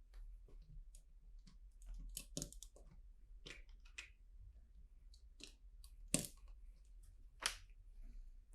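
Plastic LEGO bricks clicking and rattling as pieces are handled and pressed together: a run of small, irregular clicks, with two louder clicks in the second half.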